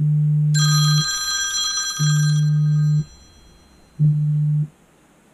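Three loud, low buzzes, each about a second long and a second apart, the third cut shorter. A bright, bell-like ringing sounds over the first two seconds and fades.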